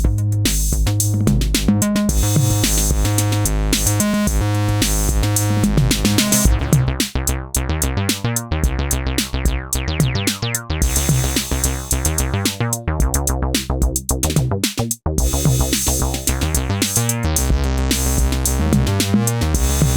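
Synthesizer bass line over a drum machine beat. About six and a half seconds in the pattern turns choppier, with short gaps, and it fills out again near the end.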